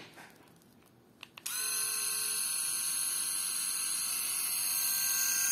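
Enchen Blackstone 3 three-head rotary electric shaver being switched on: two quick clicks, then about a second and a half in its motor starts and runs with a steady high buzz.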